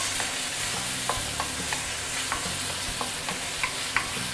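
Chopped tomato with garlic and ginger sizzling in hot oil in a stainless steel wok, stirred with a wooden spatula that knocks and scrapes lightly against the steel two or three times a second.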